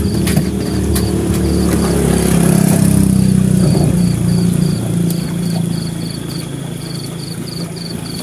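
A small engine hums, swelling louder for a couple of seconds in the middle and then easing off. Crickets chirp over it in a steady, evenly pulsing high rhythm.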